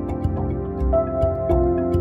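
Background music: calm held notes that change pitch every second or so, with soft ticking percussion.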